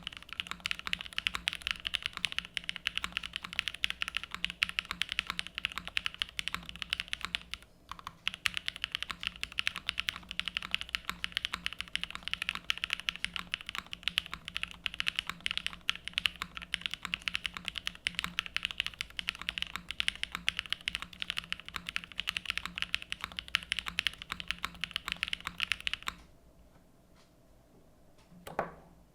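Mechanical keyboard typed on fast and continuously: a TGR 910 v2 ME with Krytox-lubed Gateron Cream Soda switches, GMK Lavender keycaps, an aluminium half-plate and O-ring mount. The typing pauses briefly about eight seconds in and stops a few seconds before the end, followed by a single thump.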